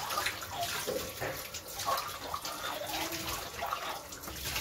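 Water sloshing and splashing irregularly as a drinking glass is swished around by hand in a bucket of foamy soapy water.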